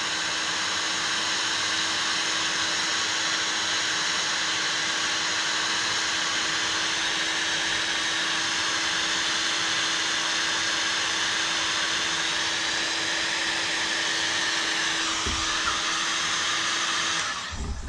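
Electric heat gun blowing steadily with a constant motor hum, shrinking heat-shrink tubing over wire connections; it switches off near the end.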